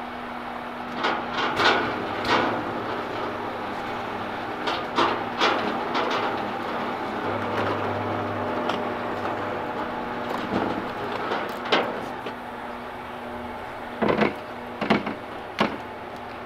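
A car transporter lorry runs with a steady hum under scattered metallic clunks and knocks as a non-running Audi A5 rolls down its steel loading ramp. The hum stops about 13 seconds in, and three sharper knocks follow near the end.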